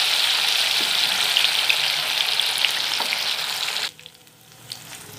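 Masala-coated catla fish pieces frying in hot oil in a kadai: a loud, steady sizzle with crackling. About four seconds in it drops off sharply to a faint sizzle with a few light clicks.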